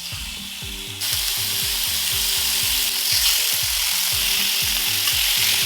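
Marinated chicken thigh pieces sizzling in a lightly oiled, hot grill pan; the sizzle jumps louder about a second in and then stays steady.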